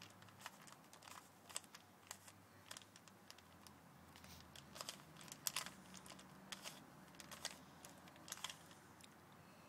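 Faint, irregular plastic clicking of a 3x3 Rubik's cube's layers being twisted quickly by hand, several clicks a second, the loudest about five and a half seconds in.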